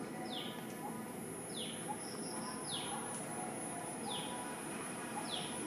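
A bird repeating a short call that falls in pitch, five times at an even pace of about one every second and a quarter, with a few brief higher notes between, over a steady high hiss.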